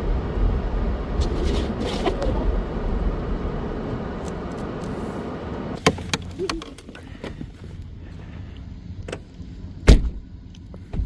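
A truck's low engine and road rumble dies away over the first six seconds as it pulls over and stops. A few sharp clicks follow, then a single loud thump near the end, typical of a vehicle door shutting.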